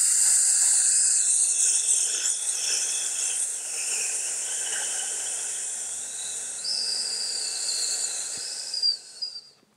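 One long hissed "sss" made on a slow out-breath: the lung healing sound of the Six Healing Sounds (Liu Zi Jue) qigong set. It slowly gets quieter and stops about nine seconds in.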